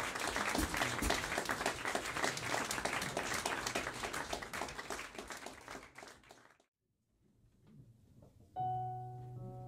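Small audience applauding, the clapping dying away over about six seconds. After a moment of silence, the jazz piano trio begins the next piece near the end with a sustained piano chord over a low bass note.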